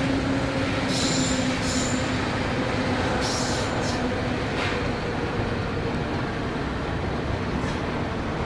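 Electric passenger train rolling away over the station tracks, with a continuous rumble and low hum. Short high-pitched wheel squeals come about a second in, again near two seconds, and once more around three and a half seconds.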